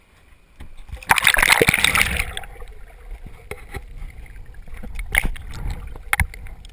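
Sea water splashing over an action camera as it plunges below the surface, a loud rush of about a second, followed by quieter underwater water noise with scattered sharp clicks and knocks against the camera housing.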